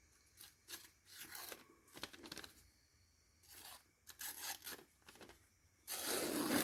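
Freshly sharpened small whittling knife slicing through a sheet of paper in a series of short cuts, with a longer, louder cut near the end: a paper-cutting test of the edge.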